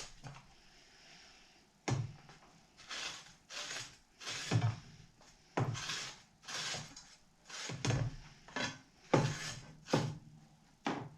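Stiff brush scrubbing burnt residue off a circular saw blade's teeth in soapy water, in irregular strokes about once a second, several starting with a sharp scrape or knock.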